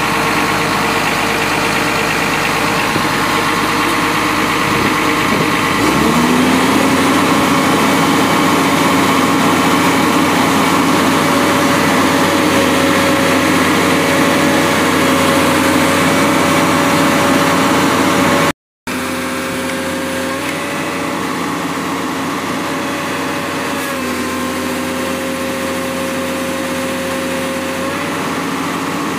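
Komatsu PC200-8MO excavator's diesel engine running steadily during a blow-by pressure test. About six seconds in its pitch rises and then holds at the higher speed. The sound drops out for a moment about two-thirds of the way through.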